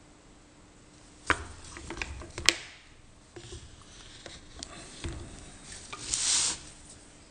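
Metal clicks and knocks from a Myford lathe tailstock being handled as its steel barrel is worked into the bore, a really snug fit. Two sharp clicks stand out in the first half, and a short scrape comes near the end.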